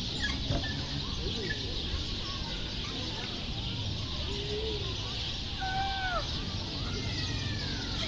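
Scattered bird calls in a park, short chirps and sliding squawks, with an arching call about six seconds in and a long falling call near the end, over a steady high hiss of background chorus.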